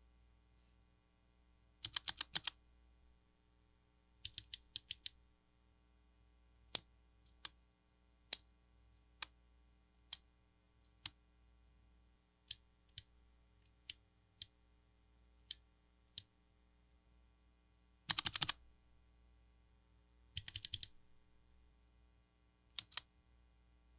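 Keystrokes on Outemu Phoenix mechanical keyboard switches: quick flurries of several presses, with single, evenly spaced presses about once a second in between.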